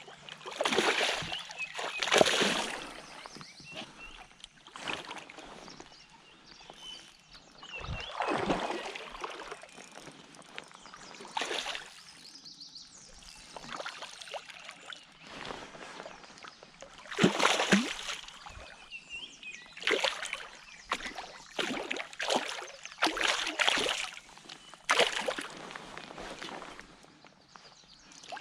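Water splashing and sloshing around a kayak in irregular bursts, several of them loud.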